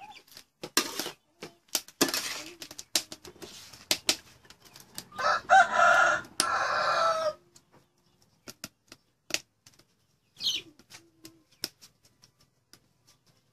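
Metal tongs and a spatula clicking and scraping against a steel wok during stir-frying. A chicken calls loudly for about two seconds midway through.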